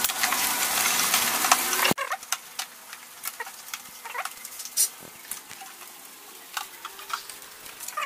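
A loud, even hiss for about the first two seconds that cuts off abruptly, then scattered light clicks and knocks of plastic parts being handled and pulled off a split air-conditioner indoor unit.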